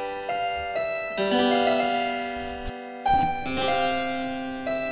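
Background music: a keyboard piece of chords, each struck sharply and ringing away, a new chord every second or so.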